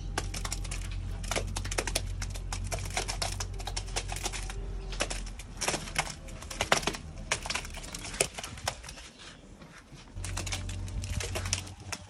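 Wooden and metal wheelbarrow loaded with wet mud plaster rolling over a rough dirt floor, its frame and wheel giving a dense run of irregular clicks and rattles.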